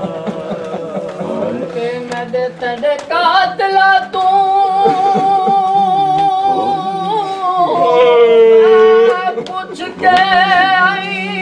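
Noha, a Shia mourning lament, sung by male reciters, with long wavering held notes over a steady low hum. A few sharp slaps, chest-beating (matam), cut through now and then.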